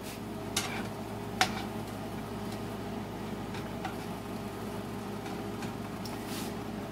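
Sliced onions cooking in oil in a nonstick skillet while a utensil stirs them, with a few light clicks of the utensil against the pan, the sharpest about a second and a half in. A steady low hum runs underneath.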